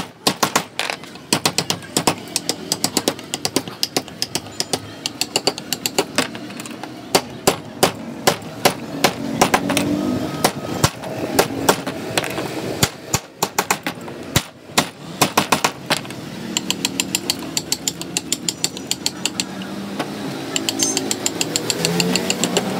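A wooden mallet strikes the handle of a carving gouge, driving it into a wooden panel as a carving is roughed out. The strikes come as sharp wooden taps, a few a second in quick runs, with brief pauses between them.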